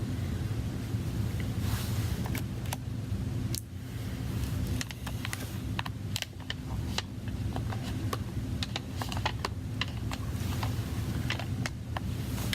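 Light, irregular clicks and taps of a small precision screwdriver working the tiny screws inside an iPad Air, over a steady low hum.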